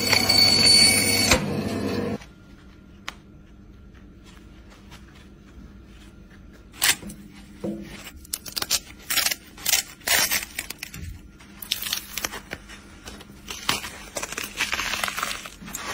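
A saw blade cutting through the sneaker gives a loud, steady whine that cuts off about two seconds in. After a quiet stretch, the glued foam, insole and lining layers are pulled and peeled apart by hand, with repeated sharp crackling rips and scrapes.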